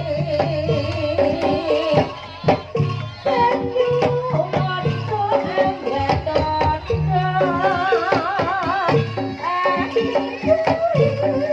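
Live Javanese jaranan music: hand drums beating in a fast, dense rhythm under a wavering melody line, with short low pitched notes stepping beneath.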